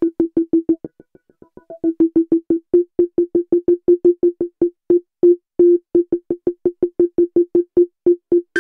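Novation Circuit Tracks synth engine playing a sequenced preset: a fast, even run of short staccato notes, about seven a second, mostly repeating one pitch over a faint high held note. The notes drop in loudness about a second in and come back strong about a second later.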